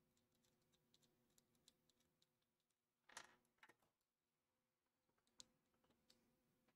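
Near silence, with faint scattered clicks and handling noises from small computer parts being worked by hand, the loudest a brief rustle about three seconds in and a sharp click a little after five seconds.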